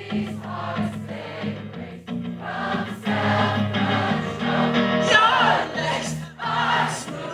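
Live rock concert music: a strummed acoustic guitar with a male lead vocal, and many voices in the crowd singing along. It is heard from among the audience.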